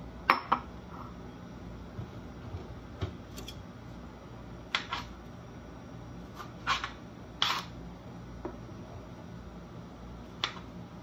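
A glass bowl is set down on a kitchen counter with a sharp knock, then strawberries are handled in the bowl's water, giving scattered short knocks and small splashes a second or more apart, about seven in all.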